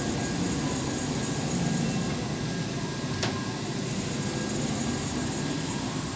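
Cincinnati Milacron Arrow 1250 vertical machining center's Y-axis jogged from the handheld pendant: a steady mechanical rumble of the axis drive moving the table, swelling slightly about two seconds in. A single sharp click sounds about three seconds in.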